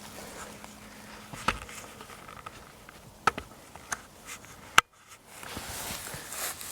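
A single shot from a Mossberg SA.410 semi-automatic .410 shotgun firing a 3-inch TSS turkey load, a very sharp crack about five seconds in, cut briefly to near silence as the recorder ducks the level. A few faint clicks come before it.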